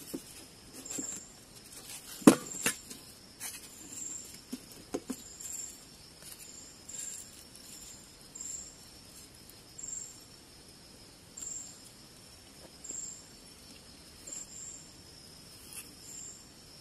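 Night insects calling: a steady high-pitched drone with short high chirps repeating about once a second. A few sharp clinks of tableware come in the first few seconds, the loudest about two seconds in.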